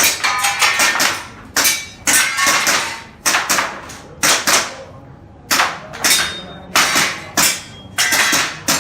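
Airsoft guns firing a rapid, irregular string of single shots, each crack followed by a short ringing echo.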